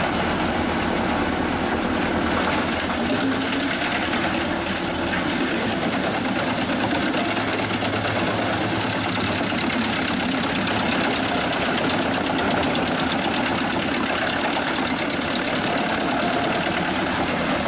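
Pezzolato PTH 1000/1000 G drum wood chipper running off the power take-off of a 360 hp New Holland tractor: a loud, steady, dense machine noise.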